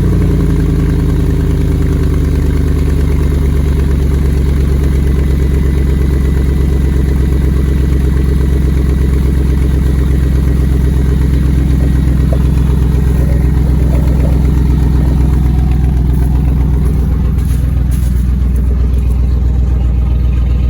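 2003 Chevrolet Silverado's engine idling just after start-up, heard up close at an exhaust leak at the Y-pipe flange, where one bolt is broken off and the other loose: a loud, steady, rapid pulsing over the idle. The idle eases down in pitch over the first couple of seconds, then holds steady.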